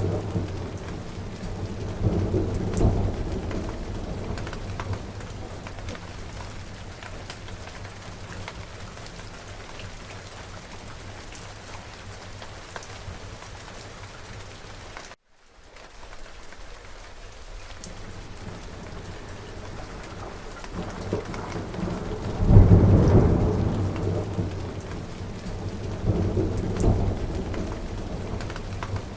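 Steady rain falling, with thunder rumbling low: a roll of thunder about two seconds in, and two more swelling rumbles near the end. The sound cuts out for a moment about halfway through.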